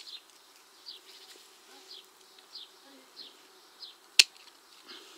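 Secateurs snipping through a tomato stem: one sharp click about four seconds in. Behind it run a steady low hum and a short high chirp that repeats about every two-thirds of a second.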